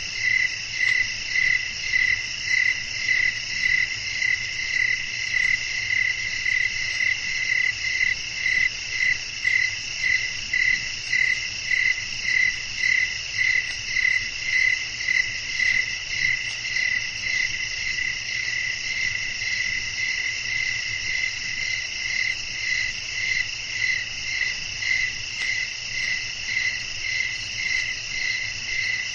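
Night chorus of crickets and other insects trilling steadily, over which one louder call pulses evenly about twice a second, fading a little midway and coming back.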